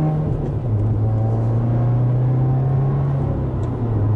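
Subaru WRX's turbocharged 2.0-litre flat-four (FA20) heard through an axle-back muffler delete from inside the cabin while cruising: a steady low exhaust drone that drops slightly in pitch near the end.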